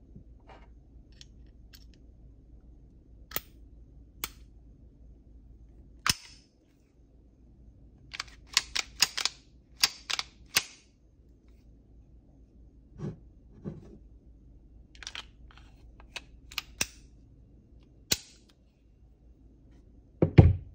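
Sharp metallic clicks and clacks from an FN Browning Hi-Power pistol being reassembled and worked by hand, with a quick run of them about eight to eleven seconds in. A louder, heavier knock comes near the end.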